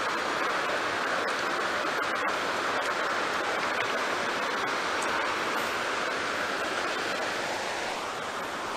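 Steady rush of shallow river rapids running over rocks.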